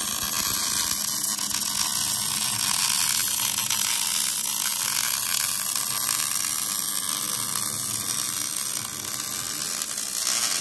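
MIG welder arc crackling and hissing steadily as a steel plate is welded out on a truck's front frame, one unbroken run of welding.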